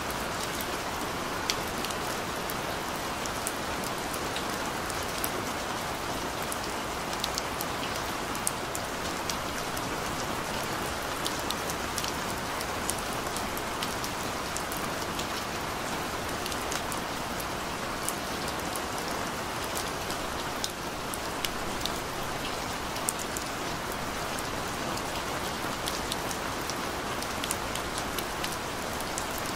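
Gentle rain falling steadily: an even hiss scattered with frequent sharp ticks of single drops.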